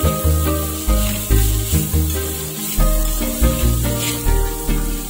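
Background music with a steady bass beat over a hiss of sizzling, as sliced onions and chopped tomato are stir-fried with a spoon in a steel kadai.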